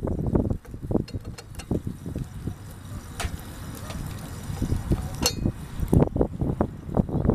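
Wind buffeting the microphone in gusts, with a few sharp clinks, two of them sharper, about three and five seconds in.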